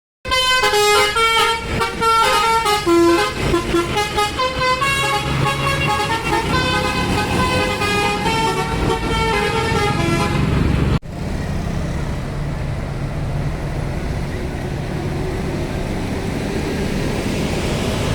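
Telolet bus horn: multi-tone air horns sounding a melody of stepping notes for about ten seconds. It cuts off abruptly, and a steady bus engine hum with road noise follows.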